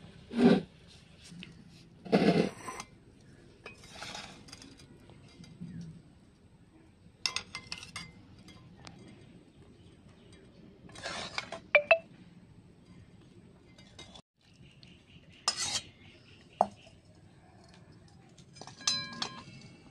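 A metal spatula knocking and scraping against a cooking pan and a glass bowl in scattered clinks and clatters, a few of them ringing on briefly.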